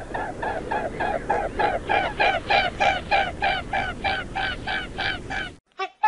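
Waterfowl honking in a rapid, even series of about three calls a second over a steady background noise, cutting off suddenly near the end.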